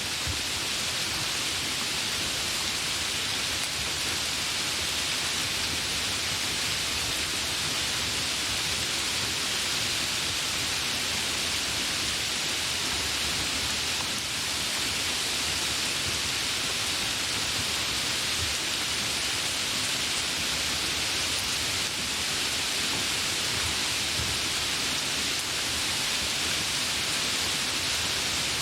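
Light rain falling: a steady, even hiss with no distinct drops or thunder.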